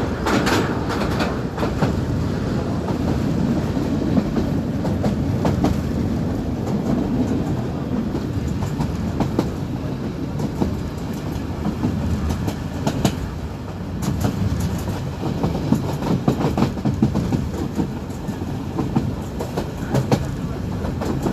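Train running along the track: a steady low rumble of the wheels and cars, with frequent sharp, irregular clicks as the wheels pass over rail joints.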